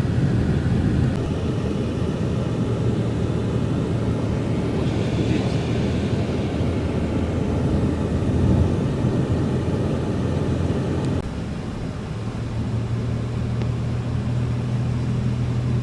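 Steady engine and road noise of a car driving on a snowy road, heard from inside the cabin. About eleven seconds in, the rumble drops and a steadier low hum is left.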